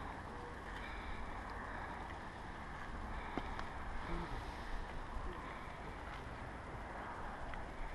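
Wind blowing across the microphone: a steady low rumble that swells and fades, with an even hiss over it.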